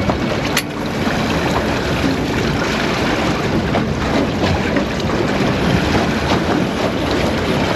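Wind buffeting the microphone and choppy sea water slapping and washing against the hull of a small aluminium boat stopped in open-ocean chop.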